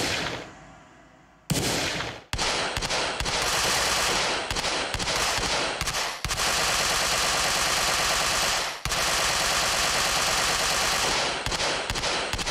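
Gunshot sound effects: two sharp single shots, then long bursts of rapid automatic machine-gun fire with short breaks about six and nine seconds in, ending in a few spaced shots.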